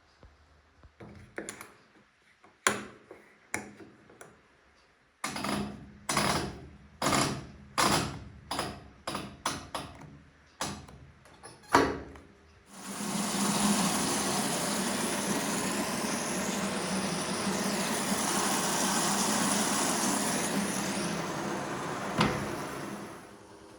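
Gorenje PS 060 A washing machine: a run of separate knocks and clunks, then a steady rushing noise for about ten seconds that stops shortly before the end.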